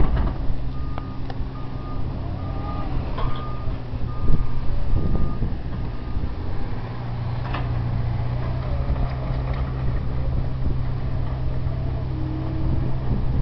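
Wheel loader's diesel engine running, with its reverse alarm beeping in a steady repeating pattern for the first five seconds or so as the machine backs up. From about six seconds in, the engine drones more steadily and strongly as it drives and pushes dirt, with a knock or two along the way.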